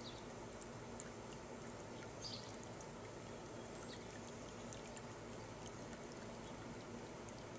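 Small birdbath fountain splashing and trickling steadily into its basin, with a few short high chirps over it.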